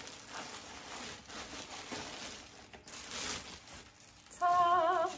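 Plastic bag crinkling and rustling as a microscope is pulled out of it and the bag is tossed aside. Near the end comes a short, loud wavering vocal note, like a sung "ooh".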